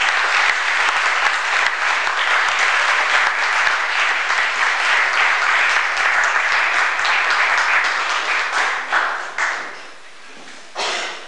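Audience applauding with dense, steady clapping that dies away about ten seconds in.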